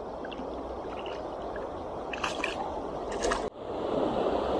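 A hooked fish splashing at the surface of a river as it is played on a fly line, over a steady wash of moving water, with two sharper splashes a little after two and three seconds in. The sound then breaks off and a louder, steady rushing noise takes over.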